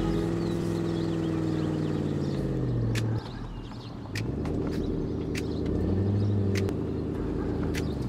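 A small hatchback's engine revs hard while its tyres spin for grip on snow. The revs sag and cut off about three seconds in, then climb again a second later and hold until near the end, as the car slides sideways instead of climbing.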